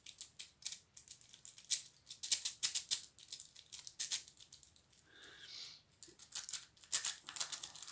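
A steel cross-lock jiggler rake is jiggled in and out of a cruciform lock's keyway, making a rapid, irregular rattle of small metal clicks against the lock's pins.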